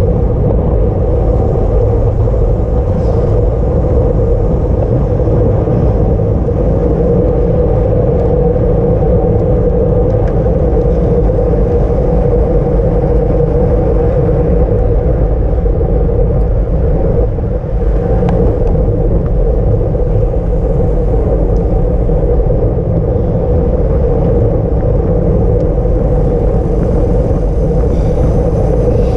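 Steady loud rumble of wind buffeting a bicycle-mounted camera's microphone at race speed, mixed with tyre and road noise and an even hum.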